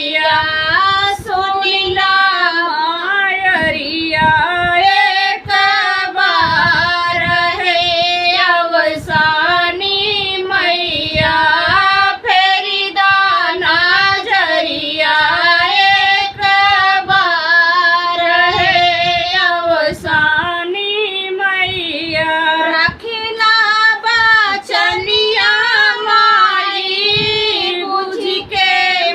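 A woman singing a devotional folk song in Awadhi, a single voice carrying a wavering melody.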